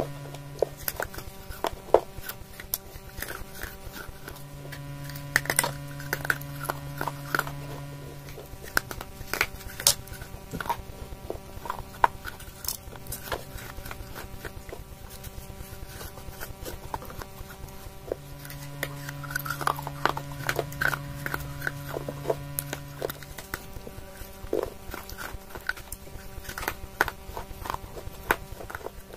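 Pieces of baked clay pot being bitten and crunched right at a clip-on microphone: a steady run of sharp, irregular crackles and snaps.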